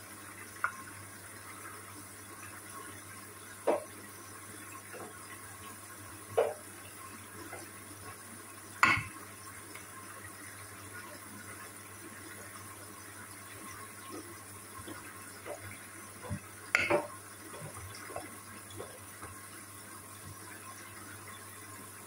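Hoover front-loading washing machine on a wash cycle: wet laundry sloshing and swishing as the drum tumbles. Sharp knocks come now and then, the loudest about nine seconds in and two close together around seventeen seconds.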